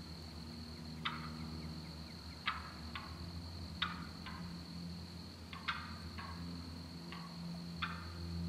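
Wild turkeys calling: about nine short, sharp calls at irregular intervals, over a steady high whine.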